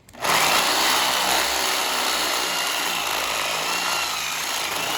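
Electric drill starting up and boring into the head of a rounded-off engine bolt to cut the head off, running steadily with a faint wavering whine over the cutting noise.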